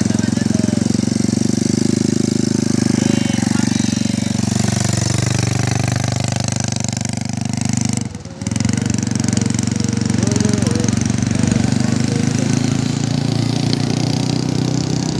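Small ATV engine running steadily with a fast, rattling pulse, which drops out briefly about eight seconds in.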